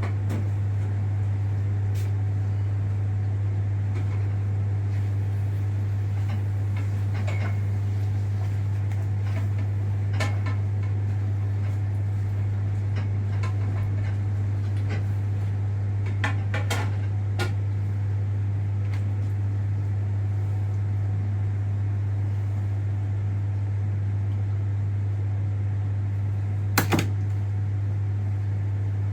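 Steady low electrical hum, with a few scattered clicks and knocks and a sharp double knock near the end.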